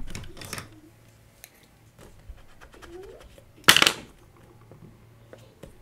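A pencil eraser rubbing out a written number on a paper worksheet, with faint scratches. Just under four seconds in, a hand sweeps quickly across the sheet in one short, loud rustle.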